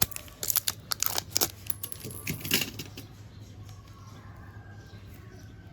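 A quick series of light clicks and clatter from small hard objects being handled, over the first three seconds, then dying away. A steady low hum runs underneath.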